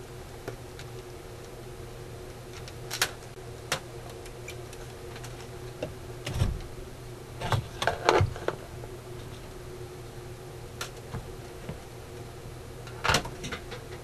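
Clicks and knocks of a digital multimeter and its test leads being handled and set down on a workbench, a few scattered taps with a busier cluster about halfway through, over a steady low hum.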